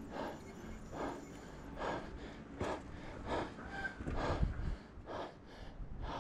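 A person breathing hard and out of breath, about eight heavy panting breaths in a steady rhythm, a little faster than one a second, from exertion on a steep climb.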